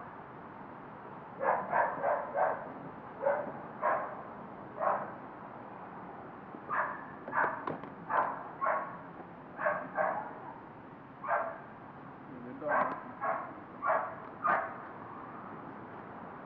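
A dog barking repeatedly in short barks, about eighteen in all, coming singly or in quick runs of three or four with pauses between.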